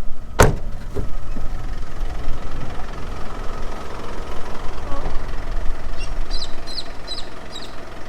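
Vehicle engine idling with a low rumble, broken by a sharp thump about half a second in and a lighter knock a moment later. Near the end a galah gives five short, high squawks in quick succession.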